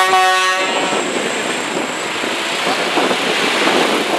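Peterbilt tractor-trailer passing close by: a steady rush of tyre and road noise. It opens with a brief pitched tone about half a second long.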